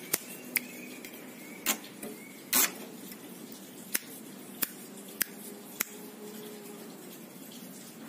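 A caged ciblek sawah, a small prinia, and its bamboo cage: about eight sharp, irregular clicks and taps, the loudest about a third of the way in. A few faint high chirps come in the first two seconds.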